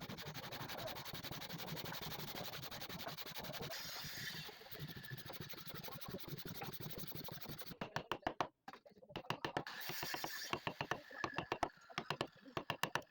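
Hand tool working wood: a rapid, even rasping stroke. About eight seconds in it changes to sharper, more separate strokes with short pauses between them.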